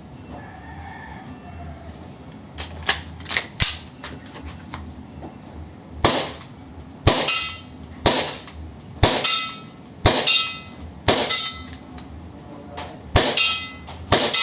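WE Tech G34 gas blowback airsoft pistol firing single shots, about once a second and eight in all, each a sharp crack with the slide cycling. A few lighter clicks come before the shots, about three seconds in.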